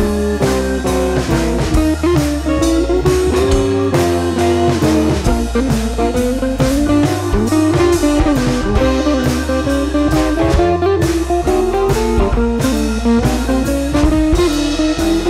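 Instrumental background music led by guitar, with a melody that bends up and down over a steady drum beat.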